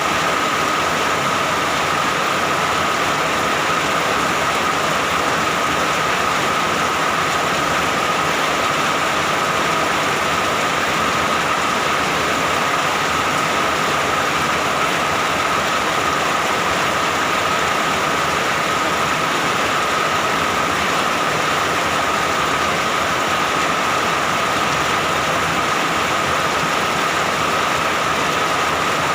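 Steady, even rain, a constant hiss with a steady tone running through it and no thunder.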